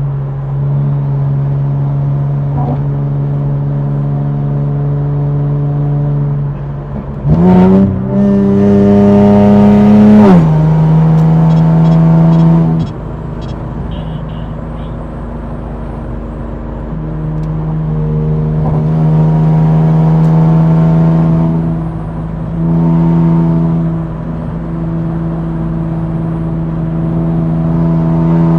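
Infiniti Q60's twin-turbo V6 running at a steady cruise. About seven seconds in the revs jump and climb under hard acceleration for about three seconds, then drop on a shift back to a steady note. The engine swells louder twice more on the throttle later on.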